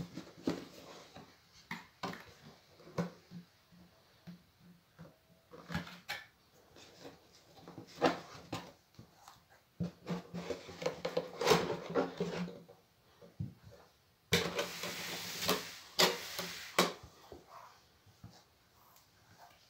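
Hands opening a cardboard shoebox and handling a pair of knit sneakers: scattered taps, scrapes and soft thuds of cardboard and shoe, with a louder stretch of rustling lasting a couple of seconds about three-quarters of the way through.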